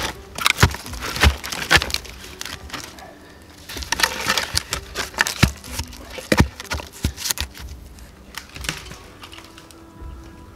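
Dead wooden poles and dry branches knocking and crackling as they are laid against a debris shelter's frame, with irregular sharp knocks and twig snaps that thin out after about eight seconds.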